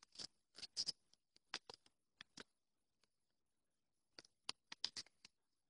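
Faint, short crackling rustles of a paper banknote being crinkled and handled. They come in a quick cluster at first, pause, and return in a second cluster near the end.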